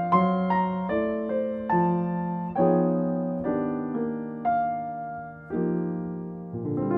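Slow, gentle solo piano music: notes and chords struck roughly once a second, each ringing and fading away before the next.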